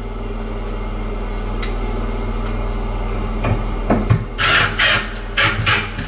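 Milwaukee FUEL cordless driver driving a screw through a cabinet hinge arm into a new plastic wall plug. The motor runs steadily for about four seconds, then comes several short, louder bursts near the end as the screw is driven in.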